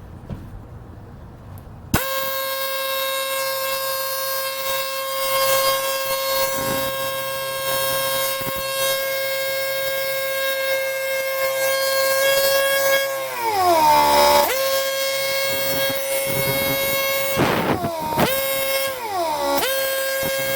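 Boat air horn, fed by its electric compressor, sounding one long steady blast that starts about two seconds in, with its pitch sagging and recovering twice in the second half. The compressor is delivering good pressure; the fault lies in the horn itself.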